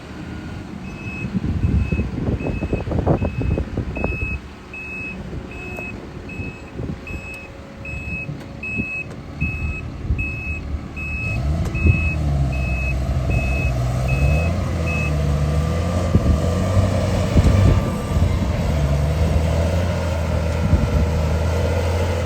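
A vehicle reversing alarm beeping steadily, about one and a half beeps a second, over heavy farm machinery running. The beeping stops about fifteen seconds in, while a deep diesel engine drone grows louder.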